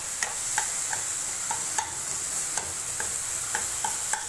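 A steel ladle stirring and scraping shallots, tomatoes and ground masala frying in oil in a non-stick kadai. There is a steady sizzle and repeated light clinks of the ladle against the pan, about twice a second.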